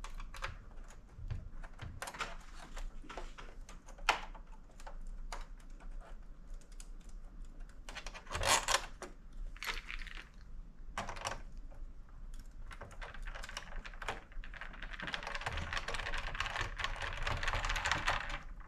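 Scattered light clicks and knocks of PS5 console parts being handled and fitted back together. Near the end comes a longer stretch of steady scraping.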